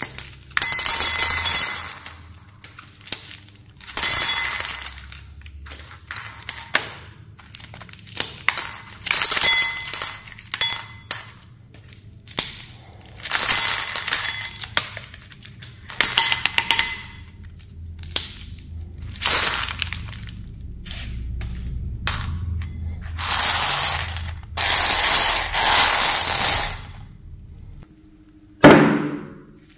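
Mentos candies poured from their rolls into a glass bowl, clattering and clinking against the glass in repeated bursts of a second or two, with quieter handling of the rolls in between. Near the end there is one loud thump.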